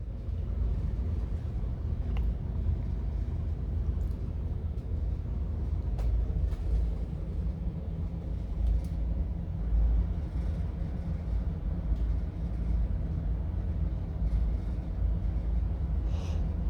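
A steady low rumble with a few faint clicks. Near the end comes a quick intake of breath: a person's breath hitching before a sneeze.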